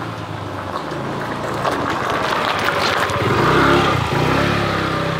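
Motor scooter's small petrol engine running, then revving with a rising pitch as the scooter pulls away about three seconds in.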